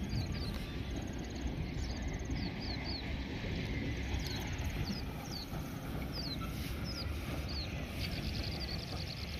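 Steady low wind rumble on the microphone, with a small bird giving short high chirps again and again, and a fast high trill near the start and again near the end.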